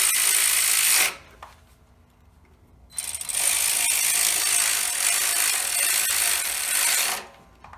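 Cordless electric ratchet whirring as it runs the valve cover bolts in on a riding mower engine. It runs about a second, stops for about two seconds, then runs again for about four seconds. The bolts are only being run up quickly, not torqued down.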